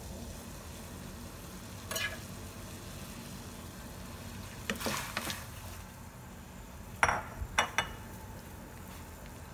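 Water bubbling steadily at a boil in a steel stockpot as raw chicken pieces are pushed off a plate into it with a spoon. Short clinks of the spoon against the plate and pot come about five seconds in, and the loudest few sharp clinks come about seven seconds in.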